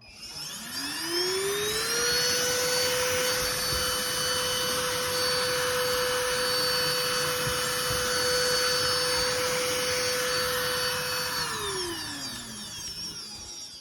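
Kärcher CVH 3 Plus cordless handheld vacuum cleaner running. Its motor whine rises over about two seconds to a steady pitch with a rushing of air, holds there, then winds down near the end.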